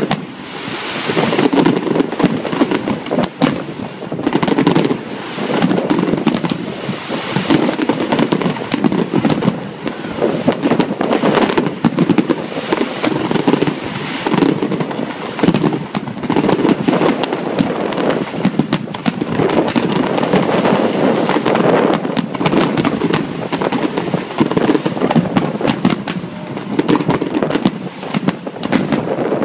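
Large fireworks display: aerial shells bursting one after another without pause, with many bangs and dense crackling.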